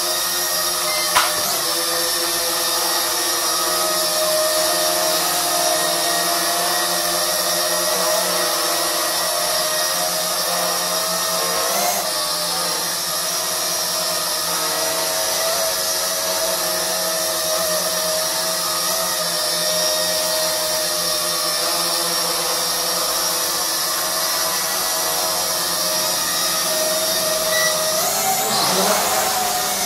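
JDRC JD-20S small quadcopter's motors and propellers whining steadily in flight, several steady tones together. The pitch swings briefly about a second in, about twelve seconds in and again near the end as it manoeuvres.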